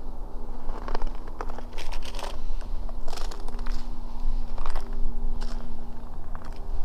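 Footsteps crunching in snow on a frozen lake, a step every half second to a second, over a steady low hum.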